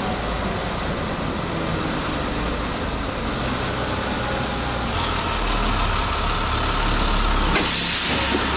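Diesel school bus running on the road, heard from inside the cabin: a steady engine drone and road rumble, with the low engine note changing about five seconds in. Near the end a loud hiss cuts in for under a second.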